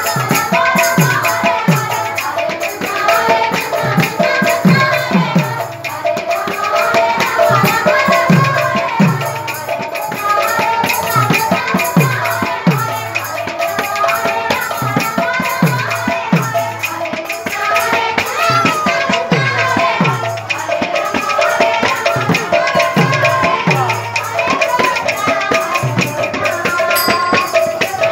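Odia kirtan music: singing over a khol barrel drum, whose deep strokes drop in pitch about one and a half times a second, with a dense run of cymbal strikes keeping the rhythm.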